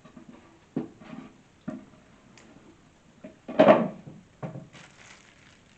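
Wooden cabinet panels and parts knocking and clattering as they are handled during assembly: a few light knocks, then a louder clatter about three and a half seconds in.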